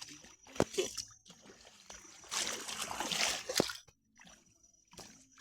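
Water splashing and sloshing for about a second and a half in the middle, with a few sharp knocks before and after.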